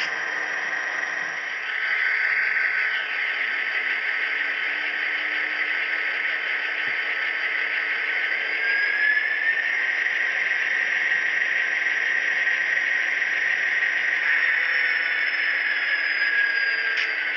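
Model train running along the track, heard from a camera riding on it: a steady hissing rolling noise with a motor whine that rises in pitch about nine seconds in and eases back down near the end.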